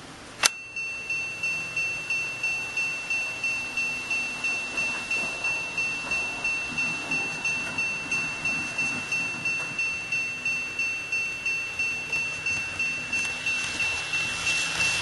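N-gauge model level-crossing warning bell switching on with a click about half a second in, then sounding its electronic ding over and over, about two and a half strikes a second. Near the end a rushing noise rises as a model train runs up to the crossing.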